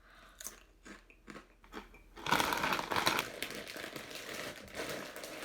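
Potato chip bag crinkling and rustling, loudest for about a second just after two seconds in, with scattered small clicks and crunches around it.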